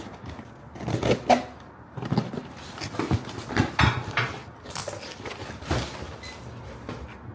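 A package being opened and its contents handled by hand: irregular knocks, scrapes and rustles of packaging and boxed items.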